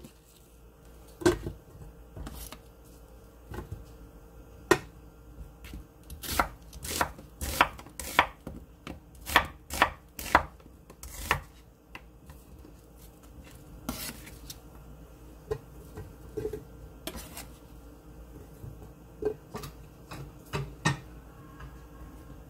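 Chef's knife slicing an onion into thick pieces on a wooden cutting board: a sharp knock each time the blade goes through and meets the board, at an uneven pace of about one or two a second, most frequent in the middle stretch.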